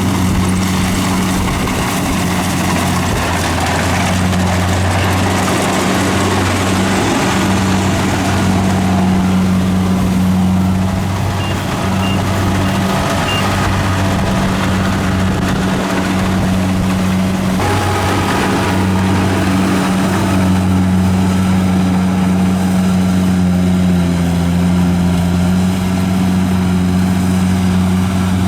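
Engine of a rice harvesting machine running steadily at a constant speed, a low, even hum with noise from the working machinery over it.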